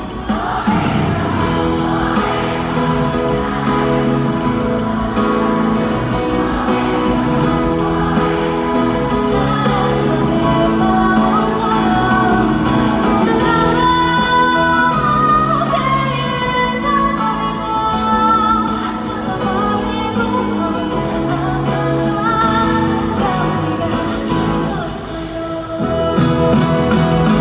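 Live pop ballad: a woman singing over a band in a large hall, with a brief dip in the music a little before the end.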